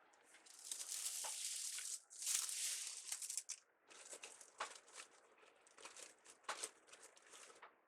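Crinkling and rustling of wreath-making craft materials being handled: two longer rustles in the first few seconds, then scattered short crinkles and clicks.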